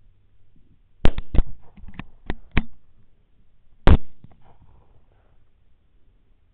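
Suppressed AR-15 rifle in 6.5 Grendel firing at hogs. There is a loud shot about a second in, then a quick run of quieter sharp pops, and a second loud shot a little before four seconds.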